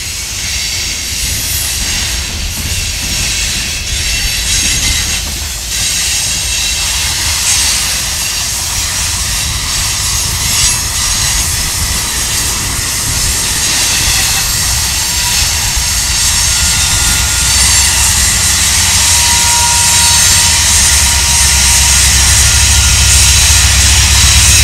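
Freight cars rolling past with a steady rush of steel wheels on rail. Diesel locomotives, an EMD SD70ACe leading a GE ES44AC, draw near, and their low engine rumble grows louder over the last few seconds.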